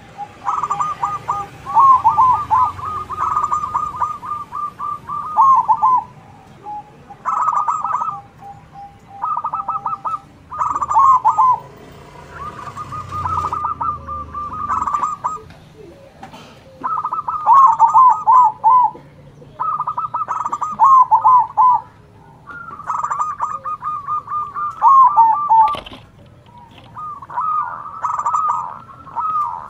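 Zebra doves (perkutut) singing their staccato cooing song, birds answering one another. Phrase after phrase of quick trilled coos, many ending in a few falling notes, follow each other with short gaps. There is a single sharp click near the end.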